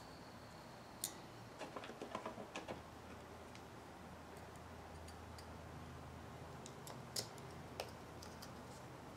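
Faint small clicks and ticks as a small hex driver and tiny metal screws are handled and driven into an RC crawler wheel's ring: one click about a second in, a quick cluster of them around two seconds, and two more near the end.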